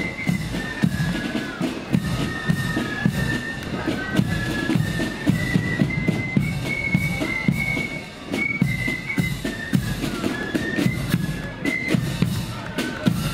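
Marching flute band playing a tune: the flutes carry the melody together over snare drums and a bass drum keeping the marching beat.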